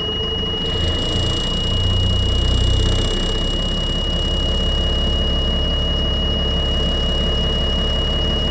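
Caterpillar 3116 turbo diesel of an LMTV truck running at idle, with the revs briefly rising about one to three seconds in and then settling back to a steady idle. A steady high-pitched whine runs under the engine note.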